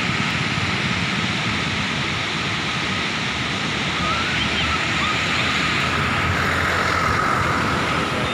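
Steady rushing of floodwater pouring through the open gates of a dam and churning in the channel below.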